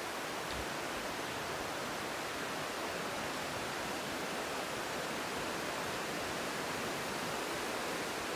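River rapids rushing over rocks: a steady, unbroken rush of water.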